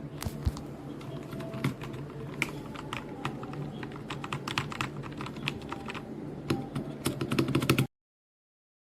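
Typing on a compact 68-key wireless mechanical keyboard: a run of irregular key clicks that comes quicker near the end, then stops abruptly. A steady low hum runs under it.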